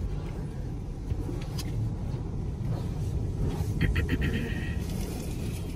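Low steady rumble of an automatic tunnel car wash, heard from inside the car's cabin, with a brief high buzzing rattle about four seconds in.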